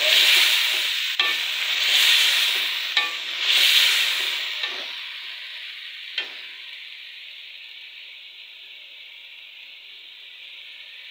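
Diced potatoes and peas frying with onions and ginger-garlic masala in a metal pot, sizzling loudly while a metal slotted spoon stirs them, with swells at each stroke and sharp taps and scrapes of the spoon on the pot. After about four seconds the stirring stops and the sizzle settles to a quieter, steady hiss.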